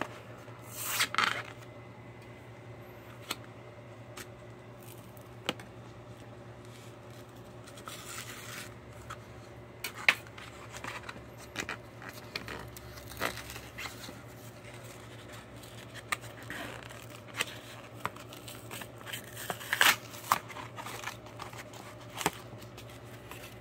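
Cardboard blister card and clear plastic packaging being torn and peeled open by hand: irregular tearing, crinkling and snapping, with louder rips about a second in, midway and near the end.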